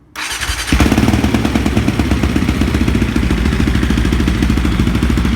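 Can-Am DS450X quad's single-cylinder four-stroke engine starting up through an FMF aftermarket exhaust. It cranks briefly, catches about 0.7 s in, and then runs loud and steady with quick, even exhaust pulses.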